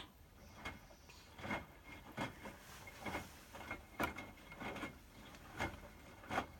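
Hotpoint WMFUG 942 washing machine drum turning a load of towels during its sensing stage: irregular soft knocks and clicks, about a dozen, over a faint steady motor whine.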